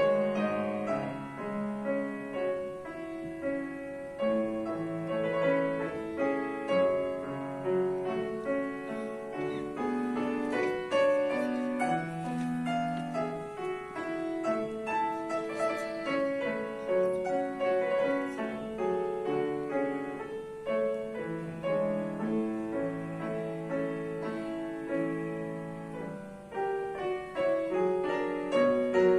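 Piano playing a classical piece: a melody of held and moving notes over a bass line, without a break.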